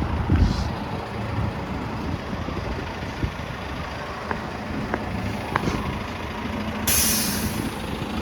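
Transit buses idling with a steady engine rumble, a few light clicks, and a sharp hiss of air brakes being released near the end, lasting about a second.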